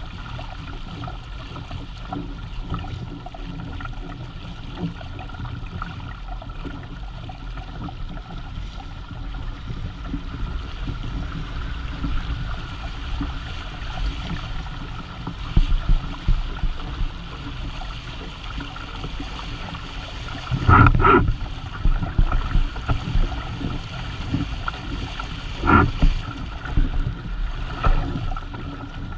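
Water rushing and gurgling along the hull and outriggers of a Hobie Tandem Island sailing trimaran under way, with wind buffeting the microphone. Twice in the second half the noise swells briefly louder.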